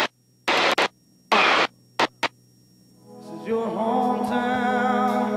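Short bursts of hiss that cut in and out sharply, cockpit noise passed by a headset intercom as it opens and closes. Then background music of held notes fades in about three seconds in.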